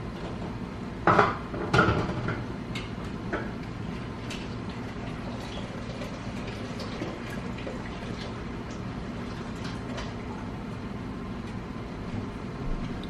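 Hot glass canning jars knocking and clinking as they are handled and set down, with two louder knocks about a second in, then lighter clinks and taps, over a steady low hum.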